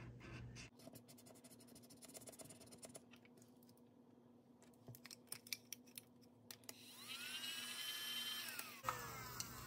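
Scratch-off panel on a paper budgeting challenge card being scratched off in quick, irregular little scrapes. Near the end a short pitched tone rises, holds and falls away.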